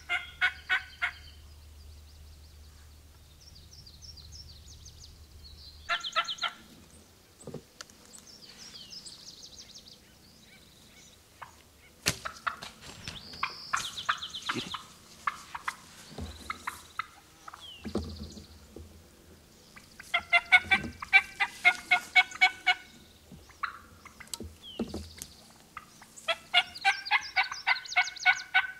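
Turkey calls in runs of quick, evenly spaced notes, each run lasting a few seconds. The loudest runs come about two-thirds of the way in and again near the end, with shorter scattered calls between.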